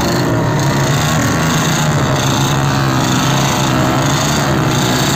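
Motorcycle engines, among them a Royal Enfield Bullet's single-cylinder, running steadily at riding pace close alongside.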